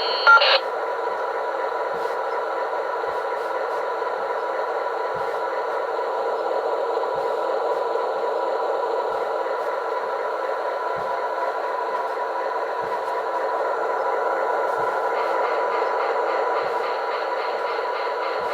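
Simulated diesel locomotive running sound from a QSI Maxx Traxx model-train sound unit, played through a speaker on a resonator tube. A steady engine drone carries faint clicks every second or two, and a brighter hiss joins near the end.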